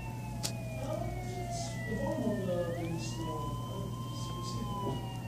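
At least two emergency-vehicle sirens wailing together, their pitches sliding slowly up and down and crossing one another, over a steady low hum.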